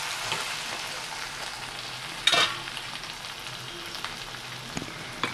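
Chicken and potato pieces sizzling steadily in a pan of oil on the stove, with a spoon knocking sharply against the pan once about two seconds in.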